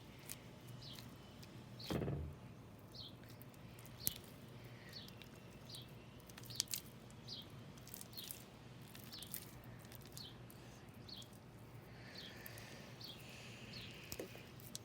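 Faint sticky clicks and squelches of glue slime being kneaded by hand while it is still very sticky and taking up activator. Behind it a bird gives a short high chirp over and over, about every half second.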